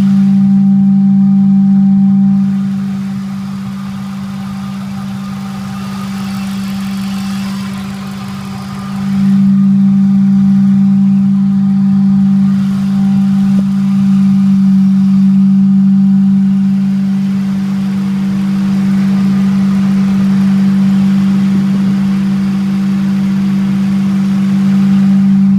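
Ford 4.6 SOHC V8 engine running with a loud, steady humming noise. The hum eases off for several seconds a few seconds in, then comes back just as strong.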